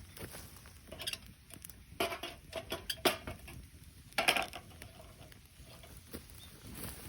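Irregular light knocks, clicks and rustling from things being handled, with a cluster of louder knocks about two to three seconds in and the sharpest one just after four seconds.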